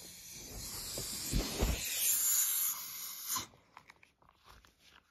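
Air hissing out of a latex balloon as it deflates, cutting off abruptly about three and a half seconds in, with a couple of low thumps in the middle.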